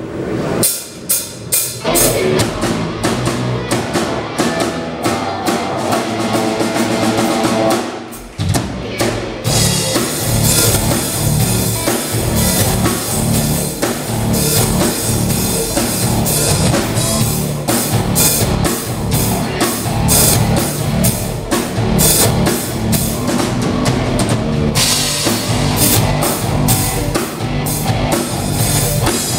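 Live rock band playing: electric guitars over a drum kit. The first eight seconds or so are sparser, with separate drum hits under the guitar, then the full band comes in with a dense low end and a steady beat with cymbals.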